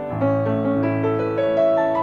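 Steingraeber & Söhne B-192 grand piano being played: a low bass note sounds just after the start and rings on under a melody of single notes moving above it.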